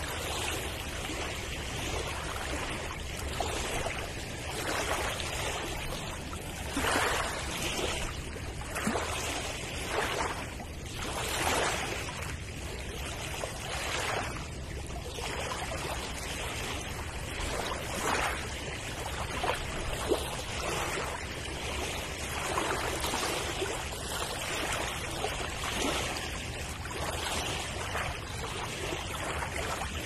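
Sea surf: a continuous wash of waves that swells louder every few seconds as they break.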